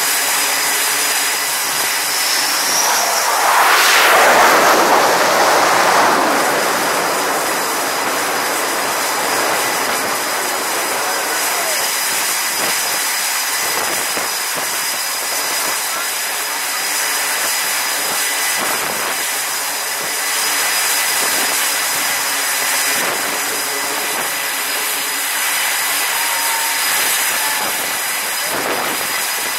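Jet aircraft engine noise on an aircraft carrier's flight deck: a steady rushing noise with a faint high whine, and a louder jet surge that swells about four seconds in and fades over the next few seconds.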